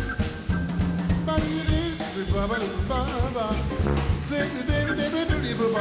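Live jazz band playing swing: a saxophone weaving a melodic line over drums, bass and guitar.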